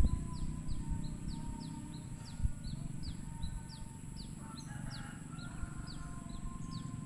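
A bird chirping over and over in short, falling notes, about two or three a second, over low rubbing and bumping noise, with one sharper knock about two and a half seconds in.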